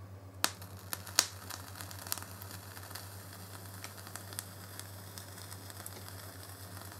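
Dual micro-coil rebuildable dripping atomiser firing on cotton wicks soaked in e-liquid: a quiet sizzle with scattered crackling pops, the sharpest about half a second and a second in.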